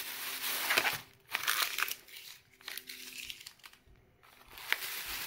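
Thin plastic shopping bag and the plastic wrapping of rice-cracker packs rustling and crinkling as the packs are handled and pulled out. It comes in bursts, stopping briefly about a second in and again around four seconds.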